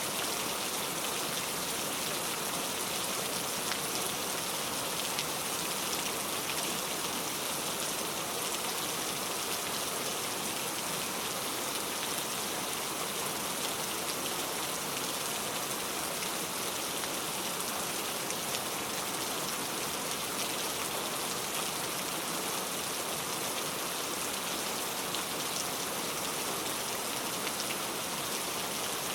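Heavy rain falling steadily on a road: a dense, even hiss with a fine patter of individual drops, and no thunder.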